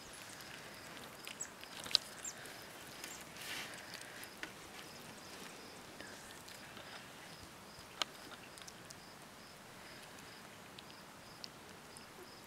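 Faint rustling and a few sharp clicks from newborn puppies stirring in straw bedding, with a faint, evenly repeating high tick behind them.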